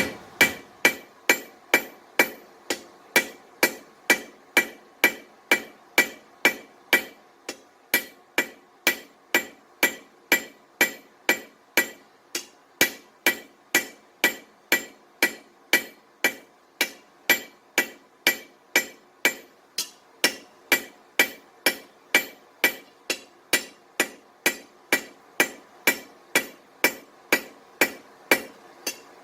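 Hand hammer striking a steel bar on an anvil in a steady rhythm of about two blows a second, each blow with a bright metallic ring. The smith is knocking the corners off the bar while forging a curtain rod.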